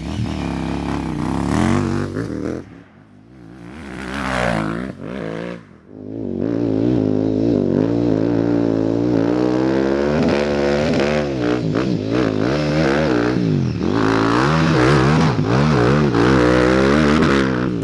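KTM 950 Super Enduro's 950 cc V-twin engine revving hard and unevenly, its pitch rising and falling over and over, as the rear tyre spins in grass and soil and throws up dirt. The engine drops back briefly about three and six seconds in.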